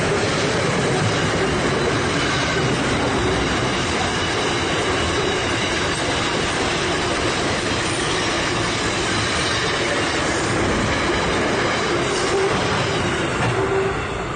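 Container wagons of a freight train rolling past on the rails in a steady, loud run of wheel and wagon noise. The sound falls away as the last wagon clears, about fourteen seconds in.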